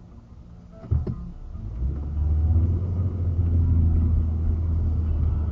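A car's engine and road rumble heard from inside the cabin as the car pulls away from a standstill and speeds up. The low rumble swells about two seconds in, and a short sharp knock comes just before it, about a second in.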